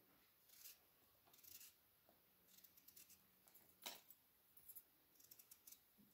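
Faint, short scrapes and clicks of a small knife cutting raw potatoes into wedges, with one sharper click about four seconds in and a quick run of small clicks near the end.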